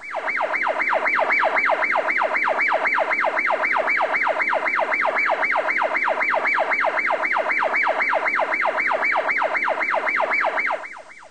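Electronic siren wail, a fast falling sweep repeated about three and a half times a second, that starts and stops abruptly.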